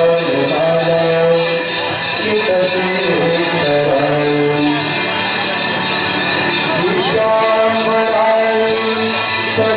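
Hindu aarti devotional song: a slow sung melody with long held notes over steady jingling percussion.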